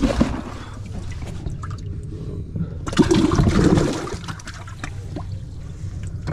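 Water sloshing and splashing in a bass boat's livewell as a hand reaches in after the fish, loudest about three seconds in.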